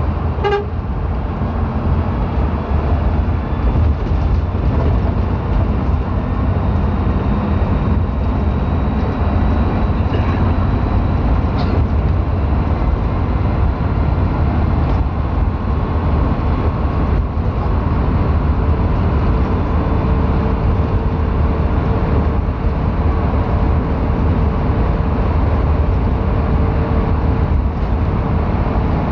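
Steady road and wind noise from a moving vehicle travelling in traffic, dominated by a heavy low rumble. A faint steady hum joins in during the second half.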